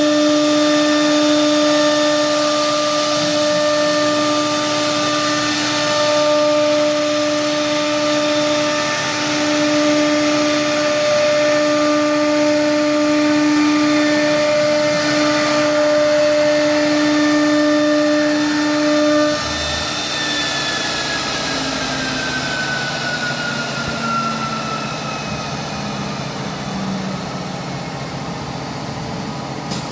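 CNC router spindle running with a steady high whine, then switched off about 19 seconds in and spinning down with a slowly falling whine while the machine's quieter running noise goes on.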